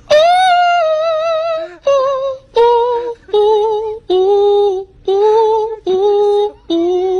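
A high-pitched singing voice holding a series of separate notes with vibrato: one long high note, then seven shorter ones that step down in pitch and settle low.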